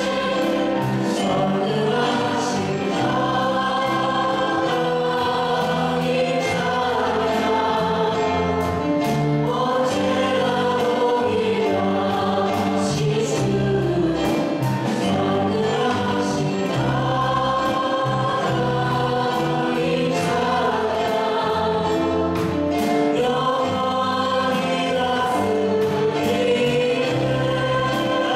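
A worship team of one male and two female singers singing a Korean praise song together into microphones, over music accompaniment with sustained low notes.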